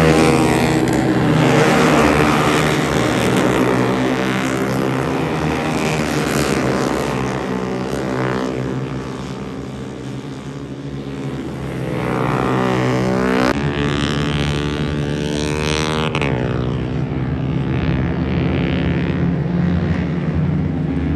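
Several racing motorcycles running hard at high revs, their engines overlapping and rising and falling as they accelerate and pass. Falling sweeps in pitch come about two thirds of the way in and again a few seconds later as bikes go by.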